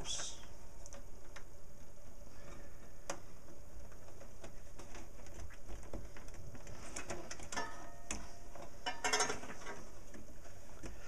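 Small clicks, taps and rustles of power supply cables and plastic SATA power connectors being handled and pushed onto drives inside a metal PC case, with a busier run of clicking and scraping about seven to nine seconds in.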